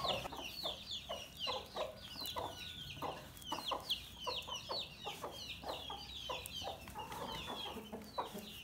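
Chickens clucking in short repeated notes, with a constant stream of quick, high, falling peeps over them.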